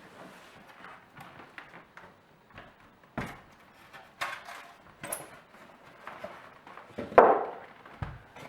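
A boxed electric scooter being pulled out of its cardboard box: scattered knocks, rustles and scrapes of cardboard and packaging. The loudest is a longer scrape about seven seconds in.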